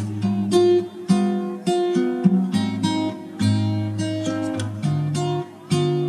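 Background music: acoustic guitar strumming and picking chords, about two strokes a second.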